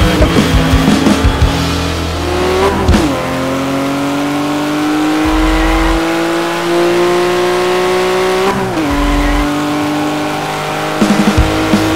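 Race-car engine sound effect climbing steadily in pitch, dropping sharply as if shifting gear about three seconds in and again near nine seconds, then climbing again. Background music with a beat plays at the start and comes back near the end.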